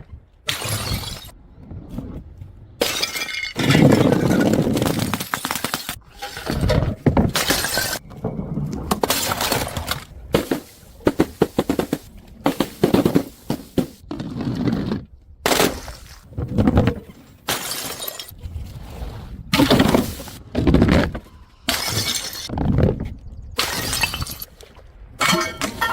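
Glass bottles and jars being smashed one after another: repeated sharp crashes, each trailing off in a short spray of breaking glass, with brief pauses between them.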